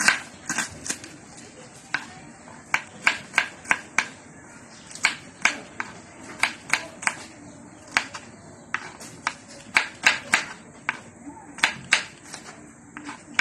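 Kitchen knife slicing shallots and garlic cloves on a wooden chopping board: sharp, irregular taps of the blade striking the board, about three a second and often in quick runs of two or three.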